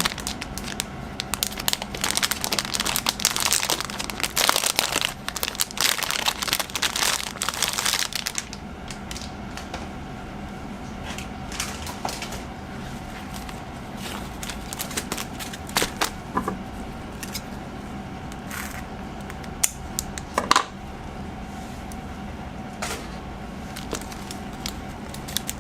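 Plastic packaging crinkling and rustling as a stationery item is unwrapped: dense crackling for about the first eight seconds, then sparser rustles and light taps.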